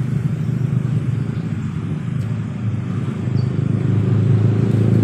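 Steady low rumble of a running engine, growing a little louder about four seconds in.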